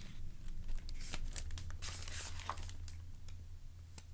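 Rustling and crinkling of a hardcover picture book being handled and held up in the hands, in a run of short crackles, over a low steady hum.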